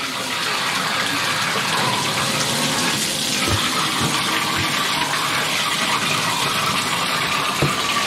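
Water running steadily into a bathtub from a Moen shower valve just rebuilt with a new 1225 cartridge, turned on to test it.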